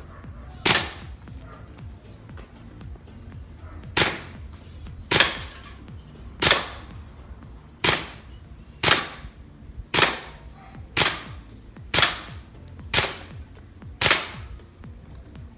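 Air gun firing pellets at a target: eleven sharp shots, a pause of about three seconds after the first, then a steady run of about one shot a second.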